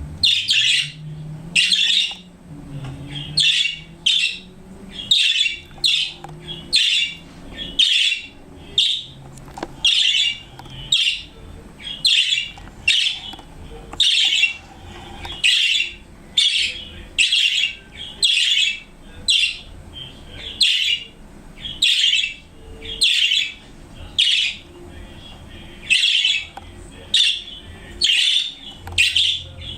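Pet budgerigars (budgies) calling: short, loud calls repeated steadily, about one every second or less.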